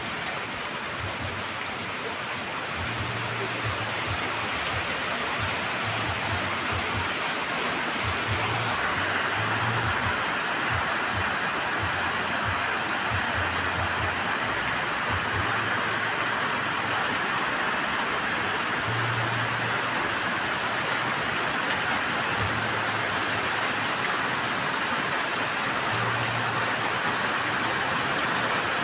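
Heavy rain falling steadily, a dense hiss that grows louder over the first ten seconds or so and then holds.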